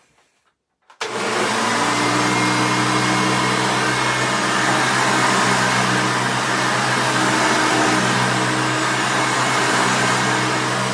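1989 Hoover Elite 350 vacuum cleaner switched on about a second in, its motor starting abruptly and then running steadily with a hum under a loud rush of air.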